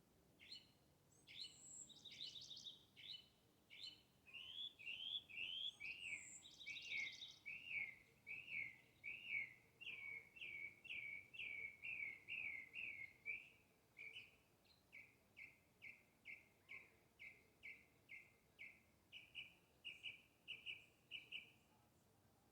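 A songbird singing a long series of clear, slurred whistled notes, about two a second, the notes getting shorter toward the end. A couple of higher, buzzy trills come in during the first seven seconds.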